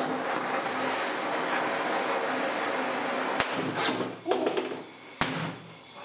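Propane blowtorch and burning plastic lighters giving a steady loud hiss that dies down about four seconds in, with two sharp pops, about three and a half and five seconds in, as the disposable butane lighters burst in the flames.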